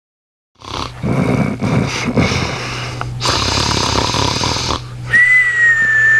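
A man snoring: rough rasping snores, then a long whistling tone on the out-breath that slowly falls in pitch, over a low steady hum.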